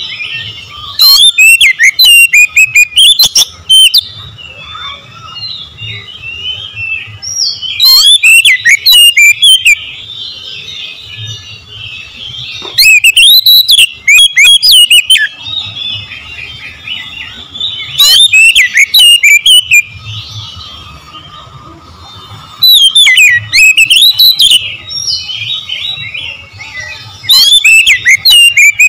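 Oriental magpie-robin singing loud, fast, varied phrases in bursts of about two seconds, six times, every four to five seconds. Quieter chirping runs steadily between the bursts.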